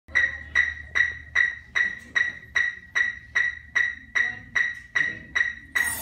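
Electronic metronome clicking a steady tempo with identical short, high beeps, about two and a half a second (around 150 beats per minute), counting off the band before it plays. Just before the end a cymbal wash comes in as the ensemble begins.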